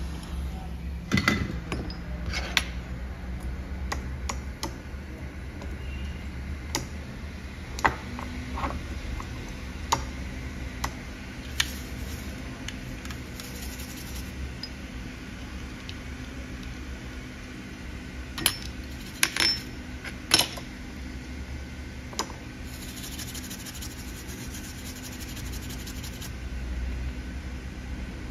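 Small metal repair tools clicking and tapping on the bench during phone circuit-board rework, about a dozen sharp clicks scattered through, over a steady low hum.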